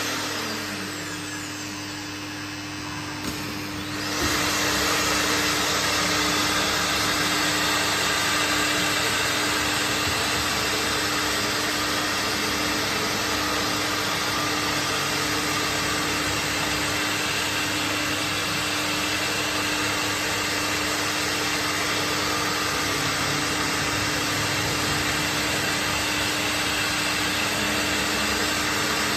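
Woodworking machinery running steadily, a continuous whirring noise with a constant hum. It dips for the first few seconds, then comes back suddenly at full level about four seconds in.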